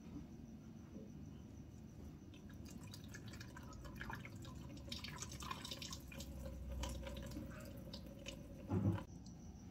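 Whey dripping and trickling from curds squeezed by hand in a cheesecloth bag into a plastic colander, a run of small irregular splashes. A short low thump near the end.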